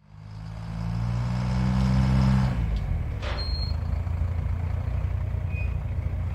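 Sound effects of the Wacky World Studios logo animation: a low rumbling drone fades in and holds steady, with a deeper hum beneath it that fades out about two and a half seconds in. A short click with a brief high ping comes about three seconds in.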